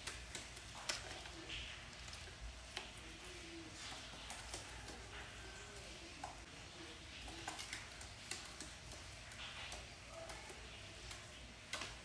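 Faint, scattered light ticks and taps from a rose-ringed parakeet walking about on a cloth-covered tabletop.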